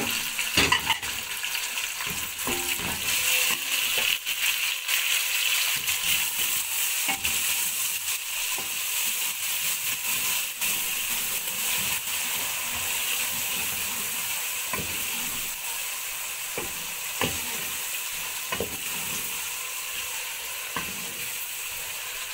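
Chopped onions, green chillies and tomatoes sizzling in hot oil in an aluminium pot while being stirred, the spoon knocking against the pot now and then. The sizzle eases off gradually.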